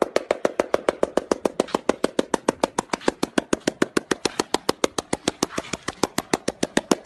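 Seal rapidly patting its own belly with a fore flipper: an even, fast train of slaps, about seven a second.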